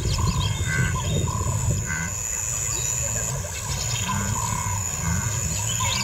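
Bush ambience: short bird chirps recurring about once a second over a steady low rumble.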